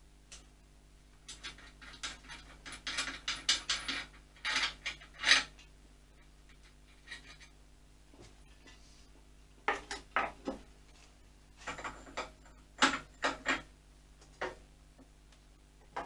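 A socket ratchet clicking and steel hand tools clinking against motorcycle fasteners. The sound comes in bursts of rapid metallic clicks: a long run starting about a second in and lasting until about five seconds, then shorter groups from about ten seconds.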